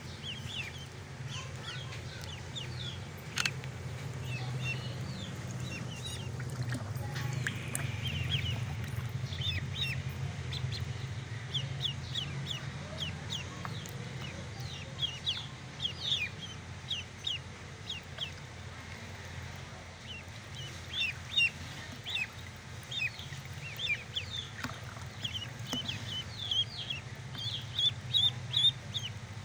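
Ducklings peeping: many short, high, falling calls, sparse at first and coming thick and fast through the second half, loudest near the end. A steady low hum runs underneath.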